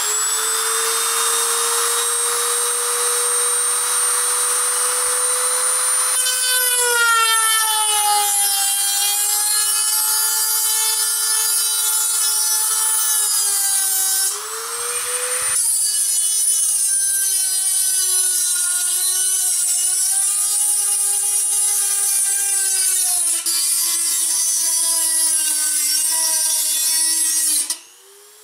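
Small rotary multitool with a thin cut-off disc cutting through the thin metal wall of a 5-litre beer keg. The motor's high steady whine drops in pitch once the disc bites into the cut, rises briefly about halfway through when the disc is eased off, then stops near the end.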